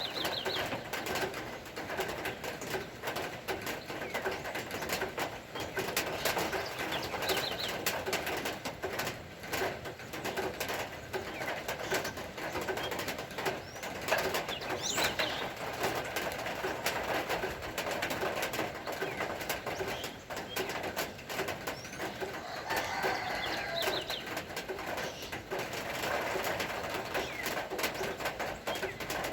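Doves cooing, with short chirps from other birds, over a steady patter of rain.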